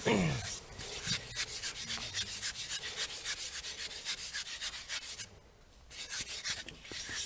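Hands rubbing quickly back and forth over a small wooden stool-shaped planchette, a rhythmic dry scraping of skin on wood, with a short pause about five seconds in.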